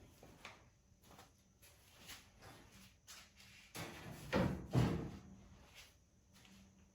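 A few scattered knocks and clunks of things being handled, the loudest two close together a little past halfway.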